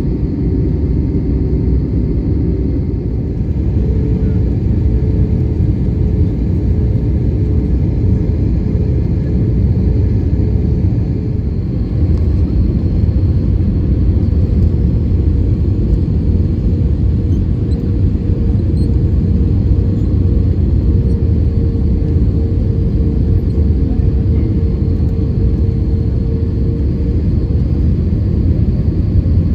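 Cabin noise inside an Airbus A320neo with Pratt & Whitney PW1100G geared turbofans: a loud, steady rumble of engines and airflow with a steady whine running over it. The sound gets louder about twelve seconds in.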